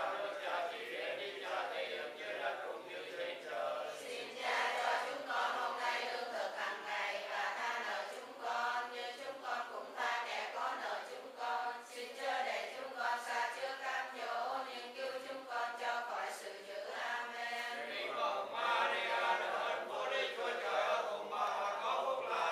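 A congregation of many voices chanting prayers in unison in Vietnamese. The group recitation runs on without a break.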